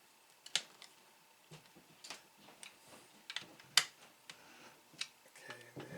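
Irregular small clicks and ticks of a screw being driven by hand into the plastic housing of a Hakko FR-301 desoldering gun, with the loudest click a little past the middle.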